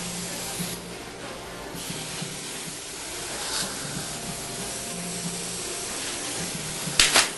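Steady hiss with a faint low hum, and a short, louder burst of hiss about seven seconds in.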